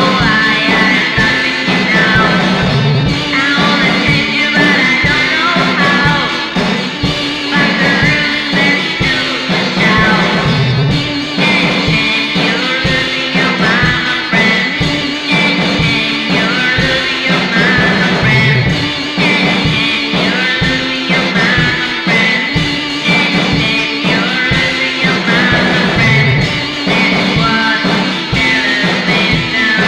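Lo-fi garage rock song, with drums, guitar and organ playing a steady beat and a woman singing.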